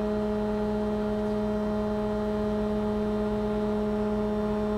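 Steady hum of a ship's machinery heard from on deck: a constant low drone with a pitched hum layered on it, unchanging throughout.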